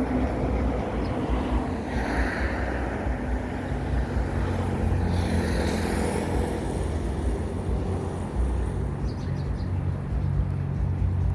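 Steady rumble of road traffic, with a brief swell of higher noise about two seconds in and again around the middle.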